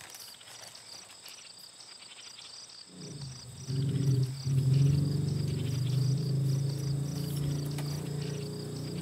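Crickets chirping in a steady, evenly repeating pulse. About three seconds in, a low sustained droning tone comes in under them and becomes the loudest sound.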